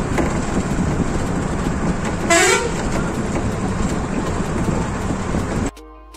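Road noise of a moving vehicle, with low rumble and rushing, and a short horn toot a little over two seconds in; the noise stops abruptly near the end.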